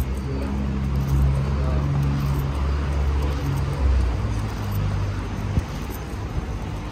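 A motor vehicle's engine running close by, a low hum that shifts in pitch, loudest in the first few seconds and fading after about four seconds, over general street noise. A single sharp click comes near the end.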